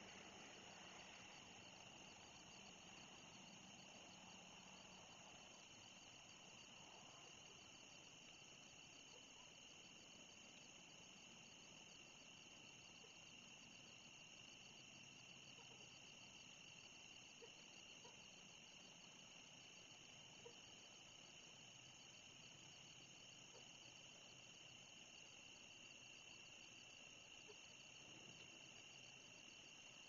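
Faint, steady chorus of crickets and other night insects, a continuous high trilling.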